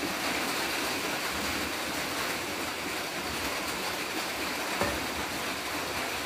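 Rain drumming steadily on a corrugated metal (tôn) roof, a constant hiss. One short knock about five seconds in.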